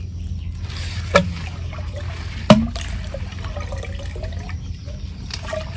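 Water trickling in a shallow muddy pond, with a sharp knock about two and a half seconds in and a smaller one about a second in.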